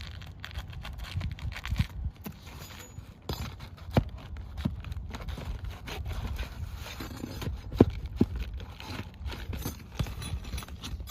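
Nails being worked out from under an asphalt shingle: scraping and scattered sharp knocks of the tool against nails and shingle, the two loudest knocks about four and eight seconds in, over a low rumble.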